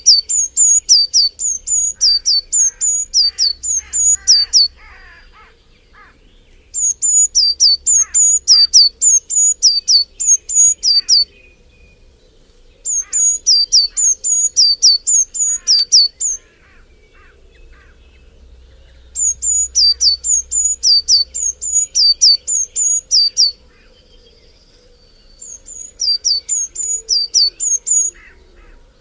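A songbird singing in five bouts of about four seconds each, with short pauses between. Each bout is a fast series of high, down-slurred notes, about three a second. Other birds call faintly in the background.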